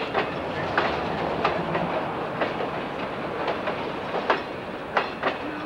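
Freight train's open hopper cars rolling over the track, the wheels clicking and clanking at uneven intervals over a steady rumble.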